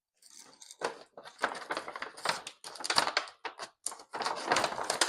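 Handling noise: irregular crackling, rustling and knocking of objects being moved about close to the microphone, starting about a second in.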